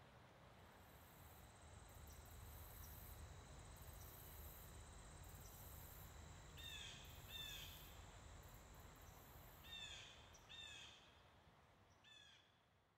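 Faint outdoor ambience: a steady high pulsing buzz of insects over a low rumble, with a bird giving short sweeping calls in pairs about halfway through and once more near the end. The whole sound fades out toward the end.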